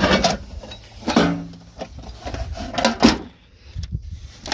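Vintage UMCO 1000A aluminum tackle box being unlatched and opened: metal latches clicking and the lid and trays clanking, the loudest clank about three seconds in.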